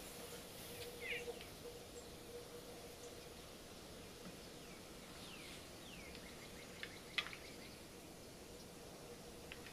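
Faint outdoor background hiss with a few short bird chirps and downward-sliding bird whistles, and a single sharp click about seven seconds in.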